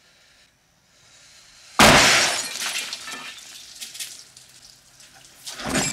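A single handgun shot, followed by glass shattering and bottles clinking as they break. Near the end there is a second crash of breaking glass.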